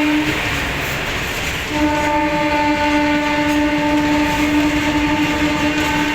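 WAG-7 electric locomotive's horn: one blast cuts off just after the start, then about a second and a half later a long steady blast sounds through the rest. Underneath, the freight train rumbles along the track.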